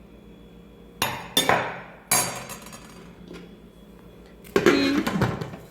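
Kitchen utensil knocking and clinking against a cooking pot: a few sharp clanks with a short ring about a second in, then a louder clatter near the end.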